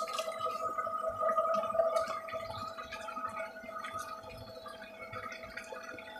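Water pouring from above into a tub of water, bubbling and splashing, with small splashes of hands and fish in a second tub. A steady hum runs underneath.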